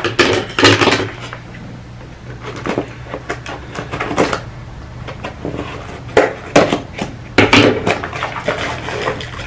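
A small cardboard box being handled and opened by hand: scattered rustles, scrapes and taps of cardboard and packaging. They come in a busier spell at the start and again about six to eight seconds in.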